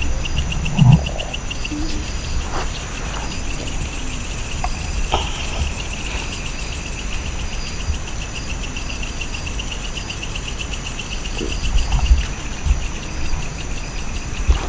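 Crickets chirping in a steady, rapidly pulsing night chorus, with a low rumble underneath and a short thump about a second in.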